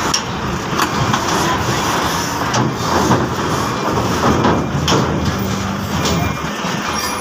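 Diesel engine of a heavily loaded cargo truck running as it rolls slowly past close by, a steady low rumble with a few sharp knocks.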